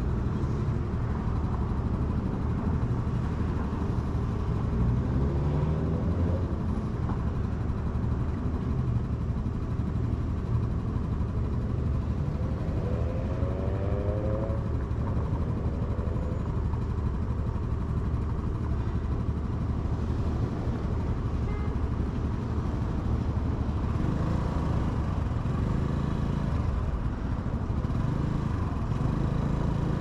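Honda Navi scooter running through city traffic, with a constant rush of road noise. Rising engine notes climb about five seconds in and again about twelve to fifteen seconds in.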